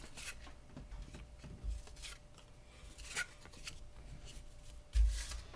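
Trading cards and a card pack being handled on a table: short papery rustles and slides of cardboard, with a low bump about five seconds in.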